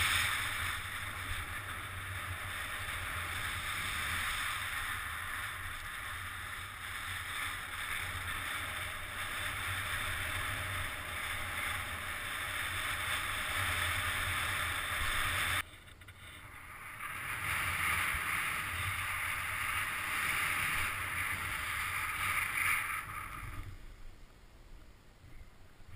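Steady rushing hiss of riding fast over crusty, wind-packed snow, with wind buffeting the microphone. It cuts out abruptly about two-thirds of the way in, comes back, then fades away near the end.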